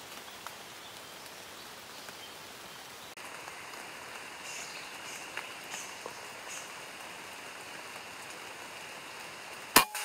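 Steady rain falling on the forest canopy, then near the end a single sharp crack of a PCP air rifle shot.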